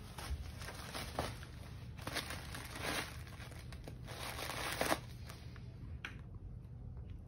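A cat nosing and pawing at a red Christmas present, rustling and crinkling its wrapping in several short bursts, over a steady low hum.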